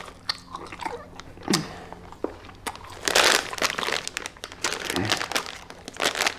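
A plastic candy bag crinkling in irregular bursts as a hand rummages in it and turns it over, loudest about three seconds in.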